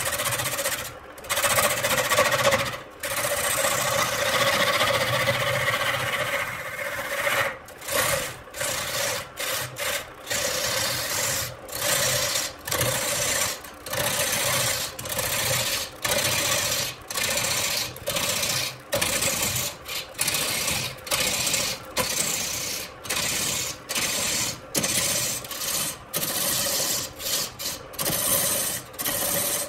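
Large wood lathe running, with a hand-held turning tool scraping into the spinning wooden blank. It makes a steady hum under a rasping cut. For the first several seconds the cut is continuous. After that it comes in short repeated strokes, about one or two a second, with brief gaps between them.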